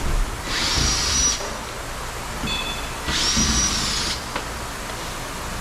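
Cordless drill/driver running in two short bursts of about a second each, with a high motor whine, backing out the two Phillips screws that hold the door trim panel.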